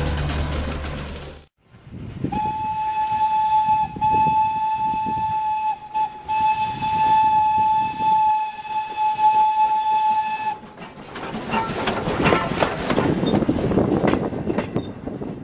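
A steam locomotive's whistle blowing one steady note for about eight seconds, broken twice very briefly. It gives way to a noisy hissing and rushing of the moving train.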